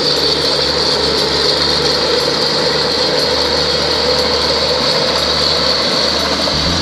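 Small crawler tractor working a flooded rice paddy: its engine and tracks give a steady mechanical clatter and whir.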